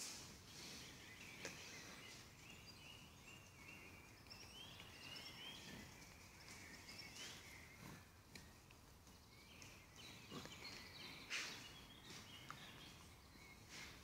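Quiet forest ambience: small birds chirp and twitter in the trees, with a few scattered rustles and soft clicks, the sharpest of them late on.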